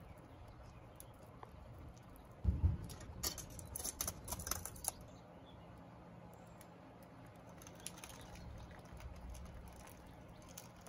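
A short flurry of metal knocks and clinks, the loudest a thump at the start, as steel tongs grip and lift a crucible of molten bronze, about two and a half to five seconds in; the pour into the plaster mold that follows is nearly silent over a faint low hum.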